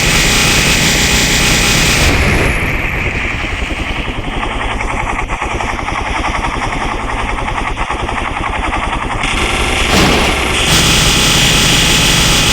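Helicopter rotor and engine running with a fast, steady chop. The sound changes abruptly about two seconds in and again near the end, where a high hiss comes in over the chop.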